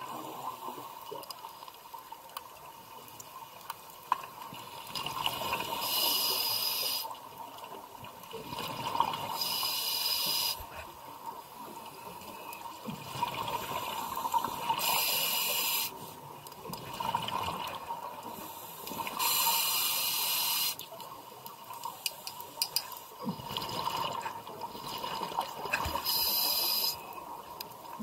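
Scuba diver breathing through a Scubapro regulator underwater: five short bursts of hiss a few seconds apart, each following a longer stretch of rumbling exhaust bubbles.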